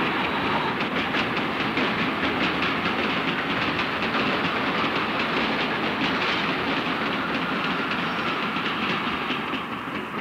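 A train running past, its wheels clattering steadily over the rail joints; the sound eases off slightly near the end.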